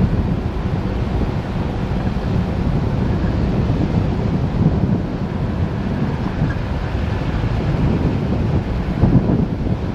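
Wind buffeting the microphone, loud and low, over the running of a Mitsubishi Pajero driving up a rough off-road track.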